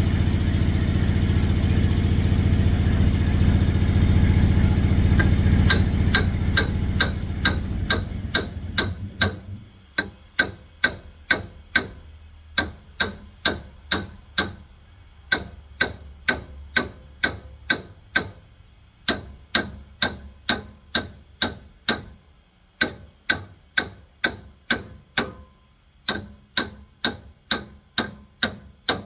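A sawmill's engine running steadily, then winding down and stopping about eight to nine seconds in. Sharp, even metal knocks follow, about two a second, in runs of several with short pauses, like hammer blows on the edger.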